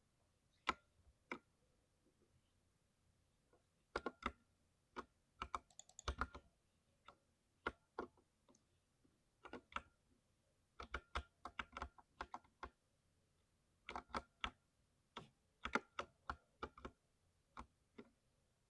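Typing on a thocky mechanical keyboard: irregular keystrokes in short bursts and single presses, with a pause of about two seconds near the start.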